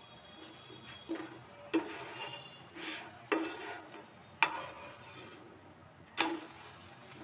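A cooking utensil scraping and tapping against a non-stick tawa about six times, spreading oil over a moong dal cheela as it crisps, over a faint sizzle of frying.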